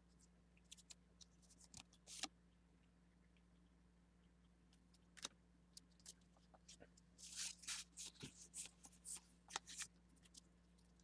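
Pokémon trading cards being handled: faint rustles and small clicks, busiest from about seven to ten seconds in, over a low steady hum.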